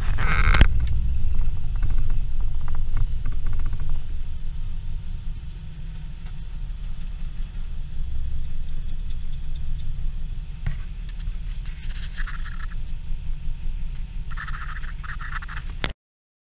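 Jeep Wrangler engine idling with a steady low rumble while the vehicle waits in line, with a few faint brief sounds over it; the sound cuts off abruptly near the end.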